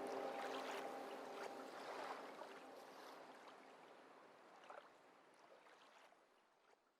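The closing soundtrack fading out: a sustained chord dies away in the first few seconds, leaving a faint, watery hiss with scattered small clicks that trails off into silence.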